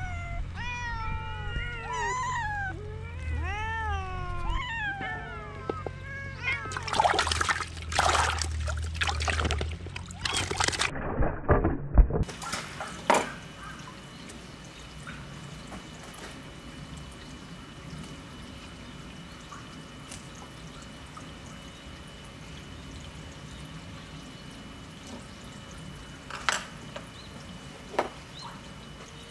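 Several domestic cats meowing, one call after another, each rising and falling in pitch, for about the first six seconds; then a few seconds of bursts of noise. After that, a quiet steady background with two light knocks near the end.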